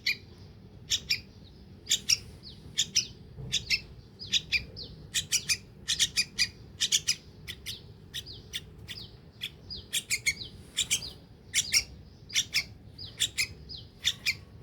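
Yellow-vented bulbul (trucuk) chick giving repeated short, sharp, high begging chirps, often in quick pairs, as it is hand-fed.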